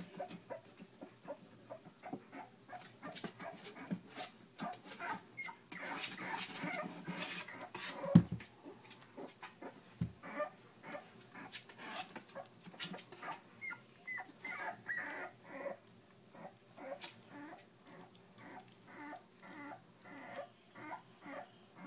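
Three-week-old Miniature Bull Terrier puppy whimpering in a long run of short, repeated cries, coming about two to three a second in the second half. A sharp thump about eight seconds in.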